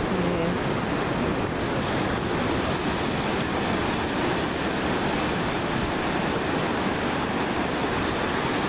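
Ocean surf breaking on a sandy beach: a steady, continuous wash of waves.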